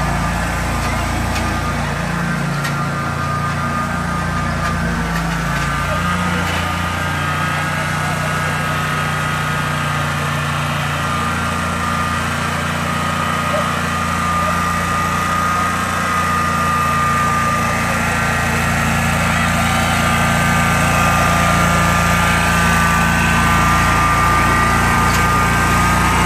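Wright Stander stand-on mower's engine running steadily as the mower drives across the lawn with its blades disengaged, the pitch shifting slightly and growing a little louder in the second half.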